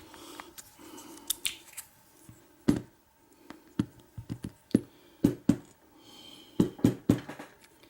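Scattered sharp clicks and light knocks of small metal lock parts being handled as a pin-tumbler lock cylinder is taken apart, the clicks coming thickest in the second half.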